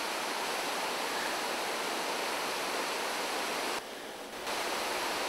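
Steady, even background hiss of an outdoor recording, dropping briefly just under four seconds in, where the shot changes.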